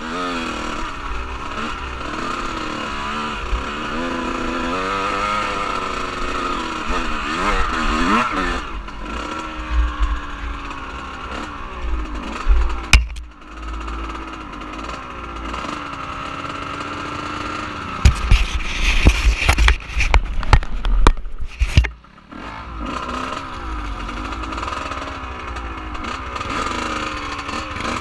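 Off-road vehicle engine revving up and down over and over as it is driven, heard through an on-board action camera with low rumbling wind on the microphone. A cluster of sharp knocks and jolts comes about two-thirds of the way through.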